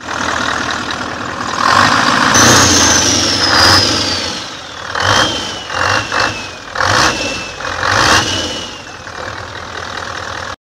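An engine starting and revving, with several short sharp revs in the second half and a high whine that slides slowly down in pitch through them. It cuts off abruptly.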